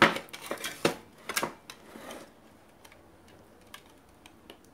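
Small clicks and knocks from a desktop computer power supply being handled for disassembly, clustered in the first two seconds, then only a few faint ticks.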